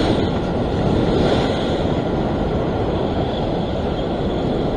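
Ocean surf breaking and washing over a rock ledge: a steady rushing of water, with wind on the microphone.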